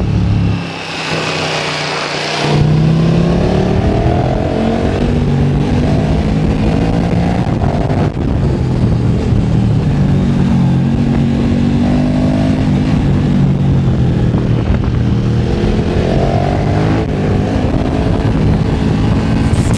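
KTM 1290 Super Duke R's V-twin with a full Akrapovic titanium exhaust, heard from on board, revving up and down again and again as the bike accelerates through bends and backs off. The engine note drops away for about two seconds near the start, then comes back louder.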